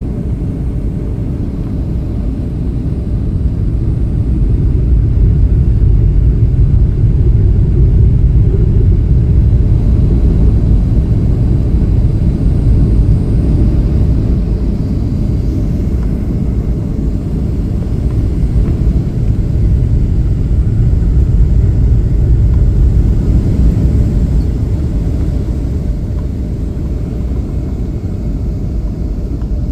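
Airliner cabin noise in flight: a steady low rumble that swells slightly a few seconds in and again a little past the middle.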